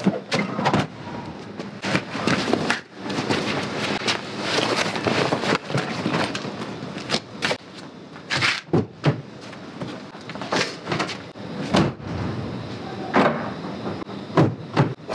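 An irregular string of knocks, thuds and rustles as camping bags are handled and car doors or the hatch of a minivan are shut.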